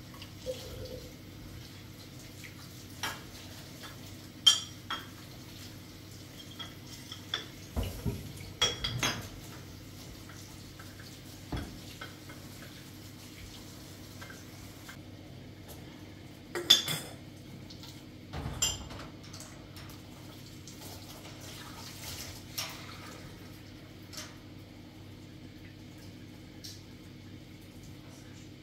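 Dishes and metal utensils being handled: scattered clinks and knocks, some ringing briefly, in irregular clusters, the loudest about two-thirds of the way through, over a faint steady hum.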